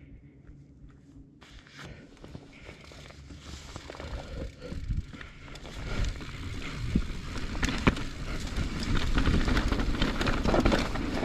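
Transition Patrol mountain bike rolling down a dirt trail: tyres crunching over loose dirt and stones, with the bike rattling and clicking over the bumps. The noise starts abruptly about a second and a half in and grows steadily louder as the bike picks up speed.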